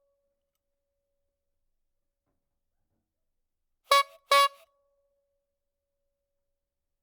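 Cuckoo clock call: one pair of short, identical pitched 'cu-ckoo' notes about half a second apart, about four seconds in, surrounded by silence.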